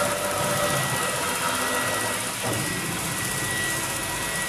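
Electric hair clippers running with a steady hum as they cut short hair.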